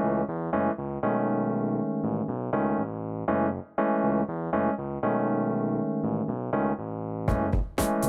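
Background music: electric piano playing a melody with chords, joined by a drum beat near the end.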